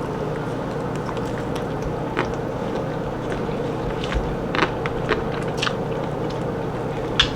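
A person chewing food, with scattered soft clicks and crunches at irregular intervals, over a steady low hum.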